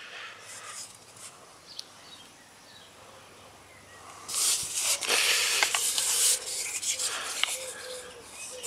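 Hands handling a carved birch kuksa cup: a rustling, rubbing noise comes in about four seconds in, is loudest for about two seconds, then goes on more softly.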